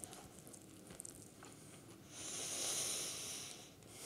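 Quiet chewing of a bite of baked chicken wing, with faint mouth clicks, then a long breath out through the nose about two seconds in.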